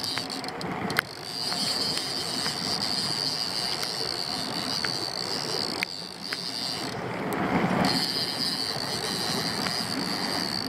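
Outboard motor running steadily, with a high whine that drops out for about a second near seven seconds in, under a hiss of wind and rain.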